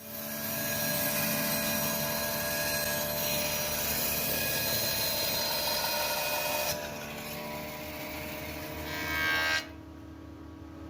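Electric woodworking saw starting up and running, a steady motor hum under a rushing cutting noise. The sound drops off abruptly about seven seconds in and again near the end.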